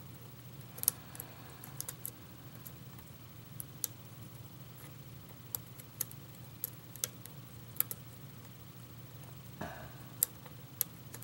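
Light metallic clicks and ticks of a lock pick working the pins of a challenge lock under tension, coming at irregular intervals.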